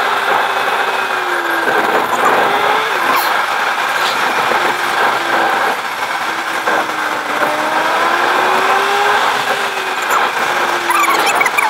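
Car engine and road noise heard from inside the cabin while driving, the engine note slowly rising and falling with speed. A run of short high squeaks comes in near the end.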